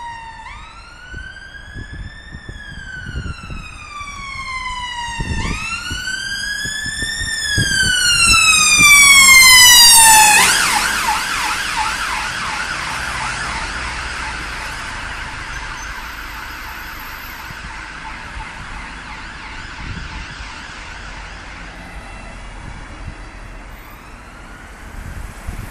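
Emergency vehicle siren passing: two slow rising-and-falling wails, then about ten seconds in, at its loudest, it switches to a rapid yelp that gradually fades away as the vehicle moves off.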